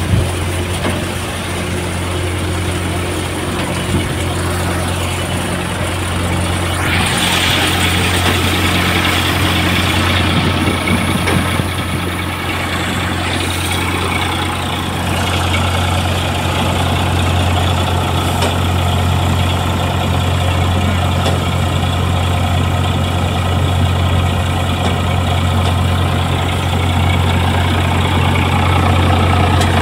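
Sonalika DI 745 III tractor's three-cylinder diesel engine running steadily at constant speed, powering a groundnut thresher, mixed with the thresher's running noise. The machine noise grows louder about seven seconds in.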